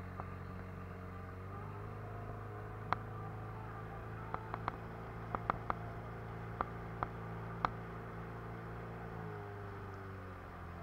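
Small boat's outboard motor running steadily under way, its pitch shifting slightly about a second and a half in and again near the end. About a dozen sharp ticks or knocks come irregularly through the middle.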